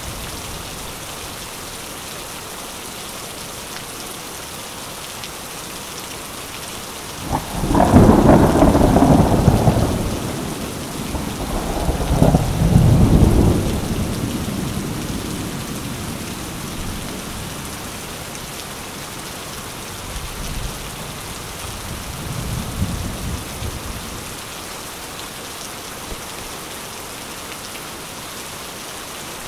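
Steady rain with peals of thunder: a loud rumble starting suddenly about seven seconds in, a second close behind it, and a fainter rumble later.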